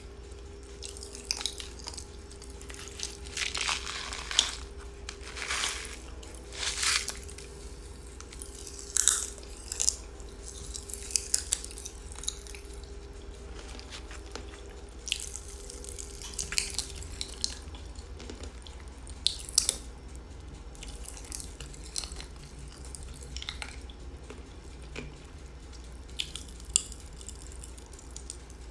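Close-up mouth sounds of someone eating watermelon Pop Rocks popping candy: irregular sharp pops and clicks with short bursts of crunching and chewing.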